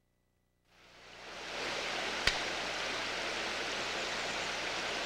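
Creek water running over rocks, fading in after a moment of silence and then steady, with a single sharp click about two seconds in.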